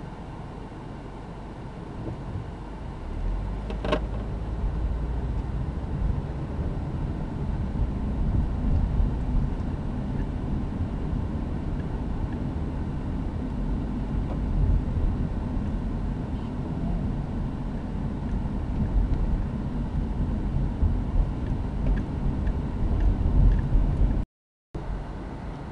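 Car running and road rumble heard from inside the cabin, getting louder about two or three seconds in as the car pulls away from a stop, then steady while driving. One sharp click comes about four seconds in, and the sound cuts out for a moment near the end.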